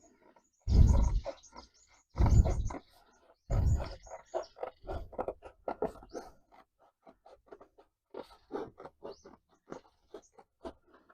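Cardboard being handled and cut to a template: three louder rustling scrapes in the first four seconds, then a quick run of short snips, about three a second.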